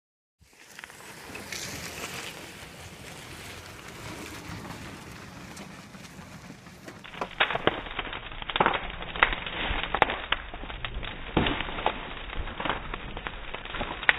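After a few seconds of steady hiss, a wood bonfire crackling and popping, with sharp, irregular snaps several times a second as the burning scrap wood throws sparks.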